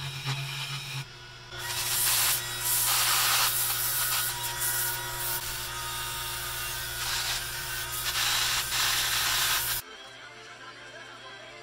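Power sanding of a wooden spindle turning on a wood lathe: a sanding disc on a handheld drill rubs the spinning wood with a steady hiss over the lathe motor's hum. The sanding starts about a second and a half in and stops abruptly near the end, leaving only the lower hum.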